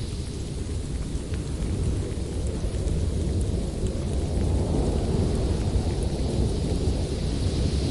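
Winter storm: a deep, continuous rumble with a steady hiss over it, swelling about halfway through.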